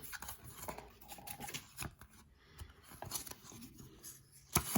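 Packaging and an instruction sheet being handled: irregular rustling of paper and plastic with small clicks, and one sharper, louder click near the end.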